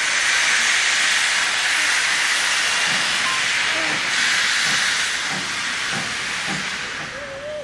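Small saddle-tank steam locomotive's open cylinder drain cocks blowing off steam in a loud, steady hiss as it moves off. The hiss fades near the end.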